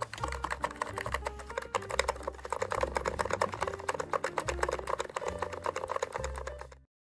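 Fast, continuous typing on a NIZ Plum87 electro-capacitive keyboard, with light 35 g switches, a steel plate and PBT double-shot keycaps. The keystrokes come as a dense patter of soft clacks. It cuts off suddenly near the end.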